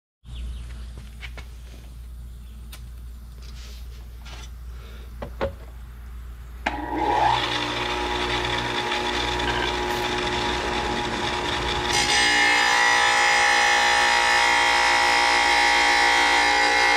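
Small benchtop wet tile saw: a few light handling clicks, then about seven seconds in the motor switches on and whines up to a steady speed. About five seconds later its glass-cutting blade bites into a ceramic wall tile, adding a louder grinding, ringing cut.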